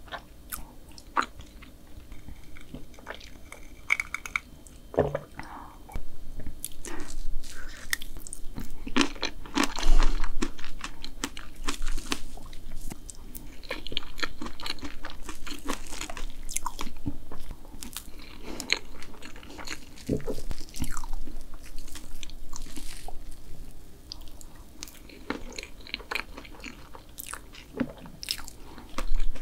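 Close-miked chewing and mouth sounds of a person eating blueberry cream layer cake, with many short sharp clicks scattered throughout.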